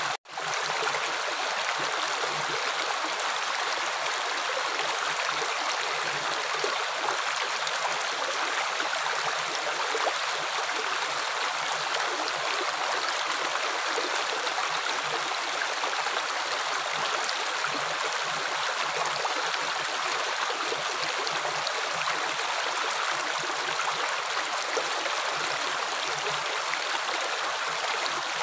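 Steady rushing flow of running water with no break in it, apart from a very brief cut to silence right at the start.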